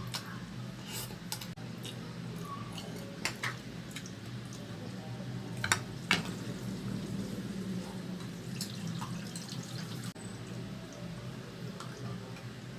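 Close-miked eating sounds from a chicken mukbang: scattered soft wet mouth clicks and smacks, with a few sharper clicks about three and six seconds in.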